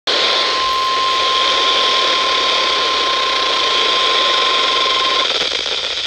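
Public Alert weather radio sounding the NOAA Weather Radio 1050 Hz warning alarm tone, a single steady tone nearly buried in loud static hiss from weak reception. The tone cuts off a little past five seconds in, leaving only the static.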